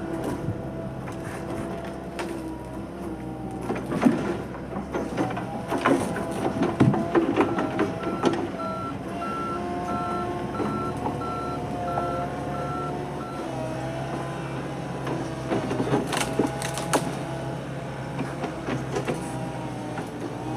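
Logging excavator's engine running steadily, with sharp knocks and clatter from the work. A warning alarm beeps about twice a second for several seconds in the middle.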